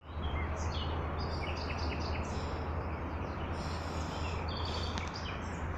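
Several small birds chirping and trilling in quick, short phrases, over a steady low rumble.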